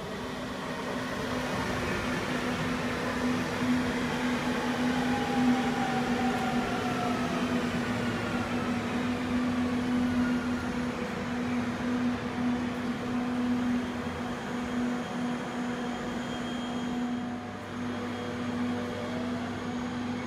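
Electric regional multiple unit slowing into a station platform. Its traction motors whine in several tones that fall in pitch over the first ten seconds or so, over a steady electrical hum and wheel and rolling noise.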